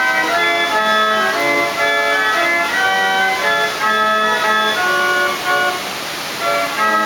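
The Villa d'Este Water Organ Fountain's water-and-air-powered pipe organ playing a tune: held organ notes in several parts over a steady hiss, with a brief lull about six seconds in.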